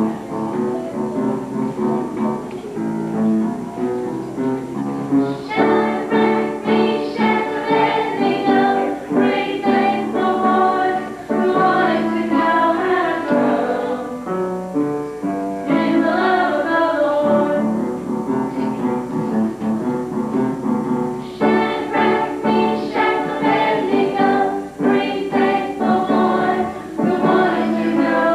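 A group singing a song together with instrumental accompaniment.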